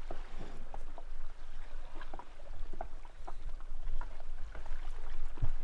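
Small water sounds around an inflatable dinghy on calm sea: scattered lapping, drips and plinks against the hull over a low rumble.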